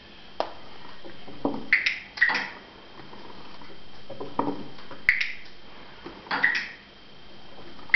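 A handheld training clicker clicks sharply several times, some as quick double clicks, marking the chicken's behaviour in clicker training. Softer, lower knocks come in between.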